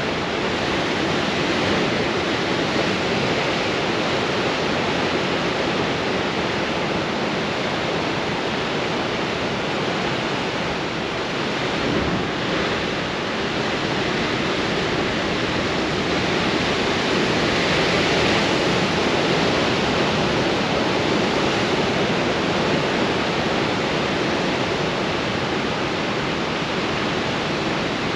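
Heavy storm surf breaking on rocks in strong wind: a continuous rush of white water and spray, swelling a little about two-thirds of the way through.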